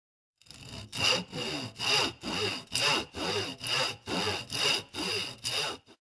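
Hand saw cutting through wood in a steady back-and-forth rhythm, about two strokes a second, starting about half a second in and stopping just before the end.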